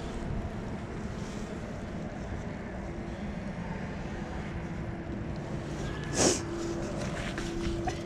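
Steady low outdoor rumble of wind on the microphone, with a faint steady hum throughout. A single short, sharp sound about six seconds in is the loudest moment.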